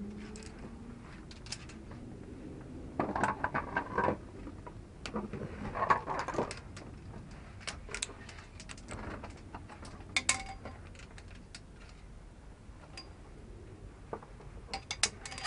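Metal climbing hardware clinking and scraping in short irregular clusters, loudest about three to four seconds in, around six seconds in and again near the end. These are via ferrata carabiners and lanyard gear knocking against each other and against the steel safety cable.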